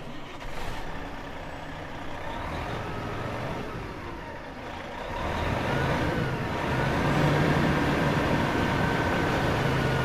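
Van engine starting up and running, growing louder about five seconds in and holding there.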